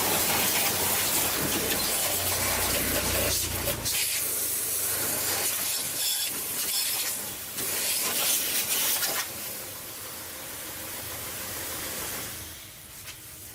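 Hissing spray of air, such as a spray gun or air nozzle, going in several spurts with short breaks between them, then fading to a quieter hiss near the end.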